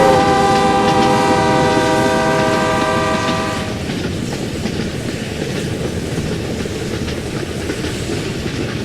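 Train horn sounding, held until about three and a half seconds in and then cutting off, followed by the steady rumble and rattle of a train running on the rails.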